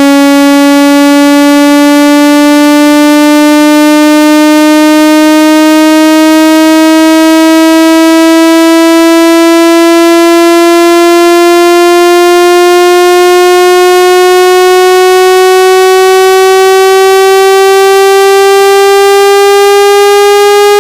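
Synthesized buzzing tone at full volume, its pitch rising slowly and steadily throughout: a speaker water-eject tone sweep, used to vibrate water out of a phone speaker.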